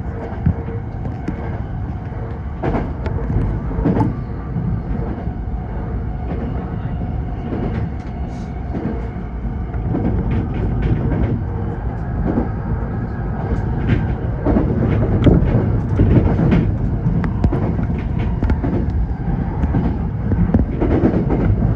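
Tokyo Metro 05 series electric train running at speed: a steady rumble of wheels on rail under a faint motor hum, with scattered sharp clacks as the wheels pass rail joints, more frequent in the second half.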